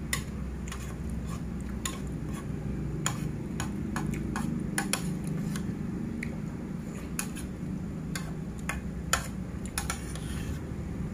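A metal spoon clinking and scraping against a plate during eating: a string of irregular light clicks, over a steady low background hum.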